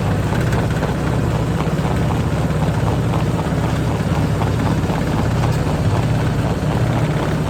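Heavy machine engine, most likely the excavator working the hydraulic rock hammer, running steadily with a fast, even pulsing.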